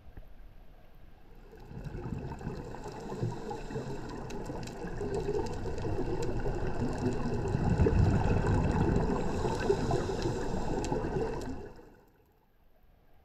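Scuba regulator exhaust: air bubbles rushing and gurgling underwater as a diver breathes out. It builds about a second and a half in and cuts off shortly before the end.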